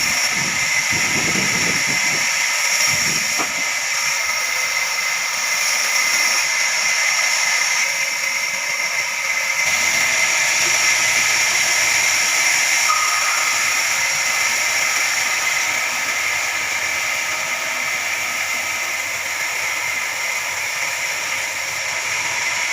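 Band sawmill running through a log: a steady high hiss with several steady whining tones.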